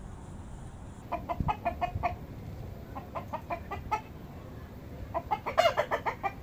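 Rooster clucking: three runs of short, quick calls, the last run the loudest.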